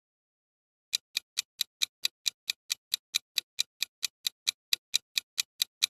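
Countdown timer sound effect: quick, evenly spaced clock ticks, about four to five a second, starting about a second in.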